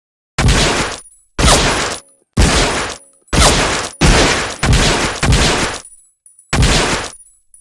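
Automatic pistol sound effect: seven single shots, mostly about a second apart with two in quicker succession in the middle, each a sharp crack dying away quickly.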